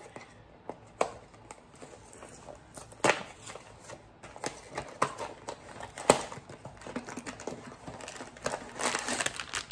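A small cardboard blind box being opened by hand: scattered clicks, taps and rustles of the flaps, with sharp snaps about a second, three seconds and six seconds in, then a denser crinkling near the end as the bag inside is handled.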